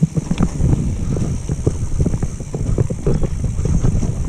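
Mountain bike rolling hard over a wet, muddy trail: a steady rough rumble of tyres with a dense run of small knocks and rattles from the bike.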